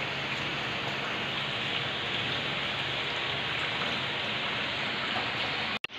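Steady hissing noise with no clear rhythm, which cuts out abruptly for a moment near the end.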